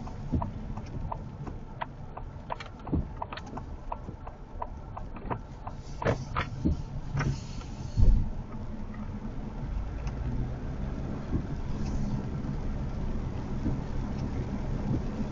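Car moving on a wet road in rain: scattered sharp ticks for the first half, a single heavy thump about eight seconds in, then a steady low road rumble.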